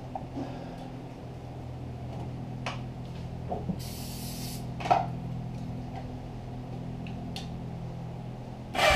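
Hands and tools working on a motorcycle's carburettor and air-box area: a few light clicks and knocks, the loudest about five seconds in, with a short hiss just before it, over a steady low hum. Guitar music comes in right at the end.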